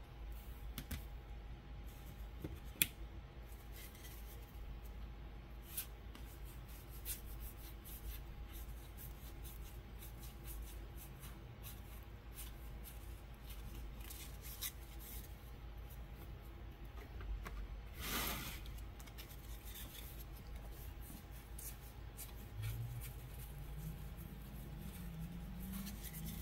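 Football trading cards being handled and flipped through by hand: faint, scattered clicks of card edges and light rubbing, with one longer slide of card against card about two-thirds of the way through.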